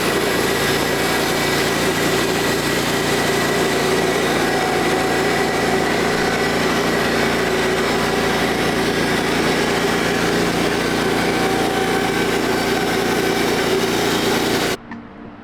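Small gasoline engine running steadily, then cutting off abruptly near the end.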